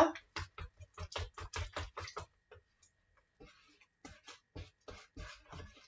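Wire whisk clicking and clattering against the sides of a plastic bowl as pancake batter is whisked, about five quick strokes a second. It stops for about a second near the middle, then resumes more softly.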